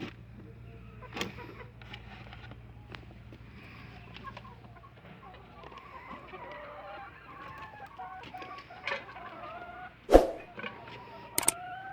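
A flock of laying hens clucking and calling continuously, over a steady low hum. Scattered clicks and knocks run through it, with one loud knock about ten seconds in.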